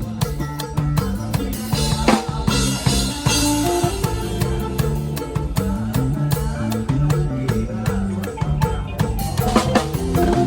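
Lively Isan lam toei music: a drum kit keeps a steady beat over a bass line that moves in steps, with a few held melody notes above.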